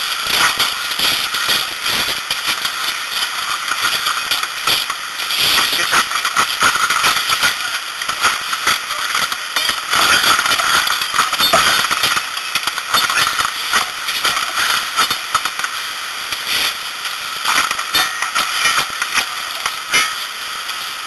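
Structure fire burning and crackling: a continuous, dense run of sharp snaps and pops over a steady hiss.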